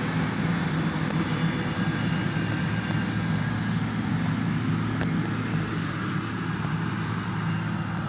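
Diesel engine of heavy road-construction machinery running steadily, with a few faint clicks over it.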